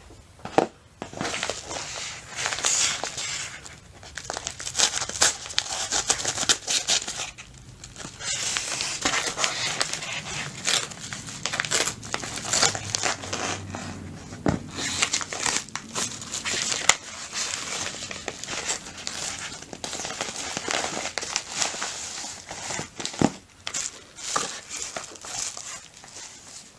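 Packaging crinkling and tearing as a mailed package is opened by hand: irregular rustling and crackling that goes on throughout, with a few short pauses.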